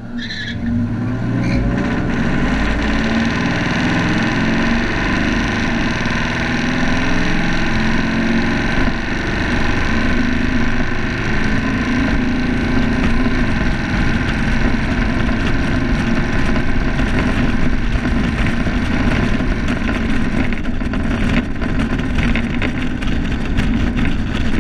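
1965 Lincoln Continental's V8 running steadily under load on a drag-strip run, heard from outside on the car's trunk with heavy wind and road noise over it.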